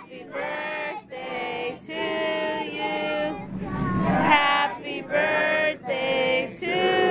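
Several voices singing a song together, note after note, with each note held for a moment.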